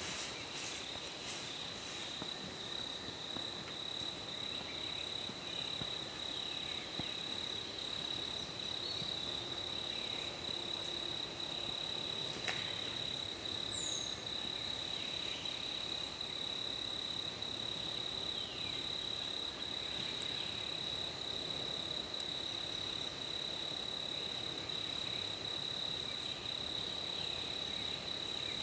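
A steady high-pitched insect trill, with a few faint falling chirps and a single click about twelve seconds in.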